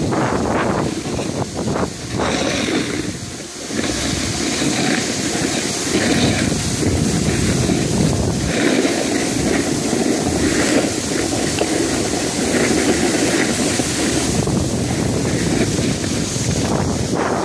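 Wind buffeting a phone's microphone: a loud, steady rushing rumble that dips briefly a few seconds in.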